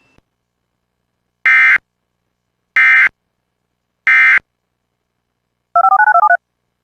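Three short, identical bursts of EAS digital data tones about a second and a quarter apart: the end-of-message codes that close an Emergency Alert System warning. Near the end comes a brief electronic tone that alternates quickly between two pitches.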